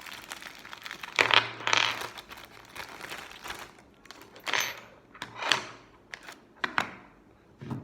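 Packaging crinkling and small metal parts clinking as the accessory bits of a mini chainsaw kit (a little screw and wrench) are handled, in irregular bursts that are loudest a little over a second in and again around the middle.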